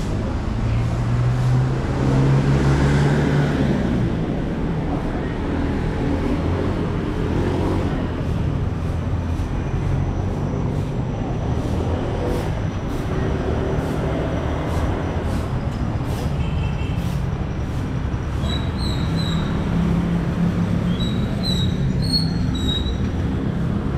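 Street traffic: motorcycles and motorized tricycles passing with their small engines running, one engine louder between about one and four seconds in. Short high chirps near the end.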